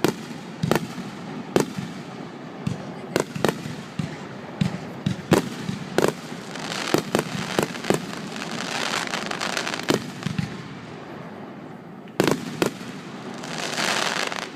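Fireworks display: a rapid series of sharp bangs from bursting shells, with spells of dense crackling in the middle and again near the end.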